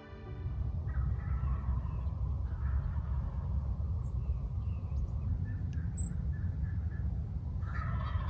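Several short, harsh bird calls, a few at a time, the loudest near the end, over a steady low rumble of wind on the microphone.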